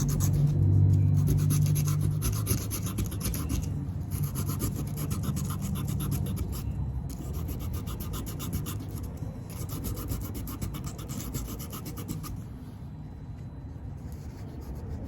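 Sandpaper rubbed rapidly back and forth over a bicycle disc brake pad, a fast scratchy rasp with brief pauses about 4 and 7 seconds in, thinning out near the end. The pad is being sanded to clean off the contamination that makes the brakes squeal.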